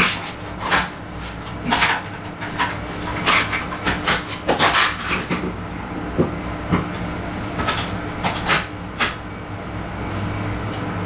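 Irregular plastic clicks and knocks from the casing and panels of a Daikin wall-mounted air conditioner being unclipped and handled during disassembly, over a steady low hum.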